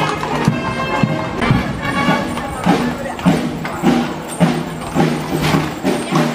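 A brass band playing a march: held notes at first, then a steady oom-pah beat of alternating low bass notes. Horses' hooves clop on the paved street alongside.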